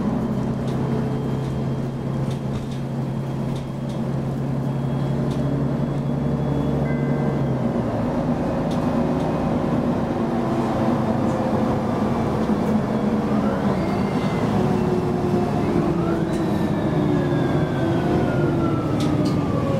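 Mercedes-Benz Citaro G articulated bus heard from inside the passenger cabin: the OM 457 diesel engine hums steadily, then about eight seconds in the bus gets under way and a drivetrain whine from the Voith automatic gearbox rises in pitch in several steps. Near the end the whine falls in pitch.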